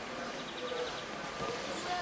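Narrow-gauge steam locomotive running along the line, a steady rushing noise, with a brief rapid high trill about half a second in.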